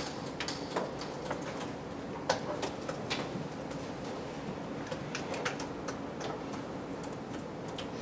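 Marker on a whiteboard: irregular small taps and scrapes as characters are written, over a steady room hum.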